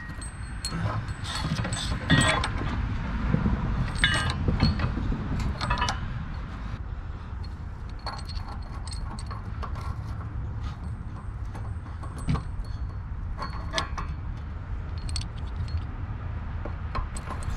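Metal clinks and rattles of hitch bolts and hardware being handled and fed into the holes of a steel frame rail, frequent in the first few seconds and sparser after, over a steady low rumble.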